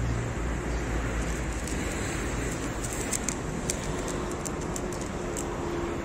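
Steady street traffic noise, with a cat crunching dry kibble close by: a scatter of sharp clicks from about halfway through.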